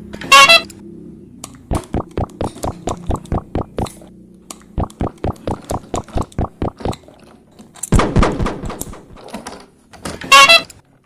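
A short horn-like toot, then two runs of rapid, evenly spaced taps, about five a second, a loud noisy burst about eight seconds in, and another horn-like toot near the end.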